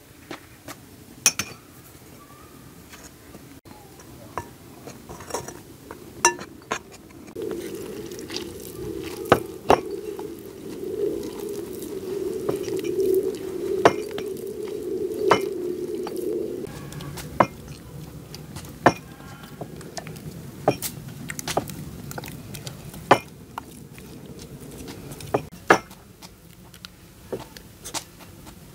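Utensils and dishes clinking during food preparation: many sharp, irregular taps and clinks. A steadier noise runs beneath them for several seconds in the middle.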